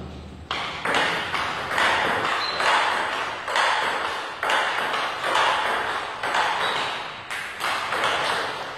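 Table tennis ball clicking back and forth off bats and table in a steady, quick rally, about two hits a second.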